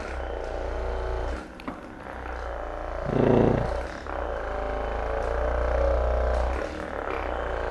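Electric massager running against a patient's back with a steady low hum that breaks off briefly twice, with a short louder sound about three seconds in.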